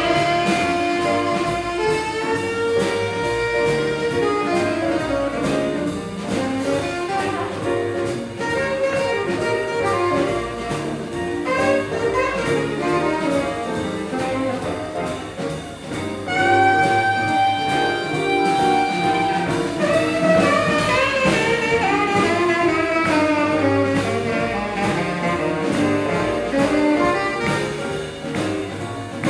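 Live small jazz band playing an up-tempo swing number, the tenor saxophone leading over upright bass and a steady beat. The saxophone holds one long note a little past halfway through.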